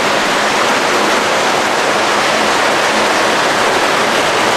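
Water pouring and splashing into concrete koi ponds from inflow pipes: a steady rushing noise.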